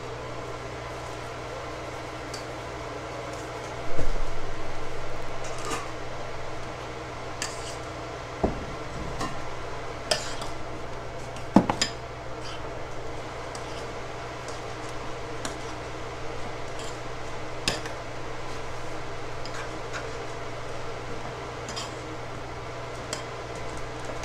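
Metal spoon clinking and scraping against a glass mixing bowl while stirring, with scattered light clinks. A loud clank about four seconds in that rings on briefly.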